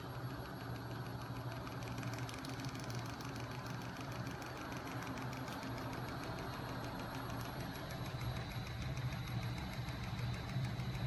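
Homemade magnet-coupled crankshaft and 5 kg flywheel machine, driven by a small 12 V electric motor, running: a steady low hum with a fast, regular mechanical ticking from the moving parts that comes in about two seconds in.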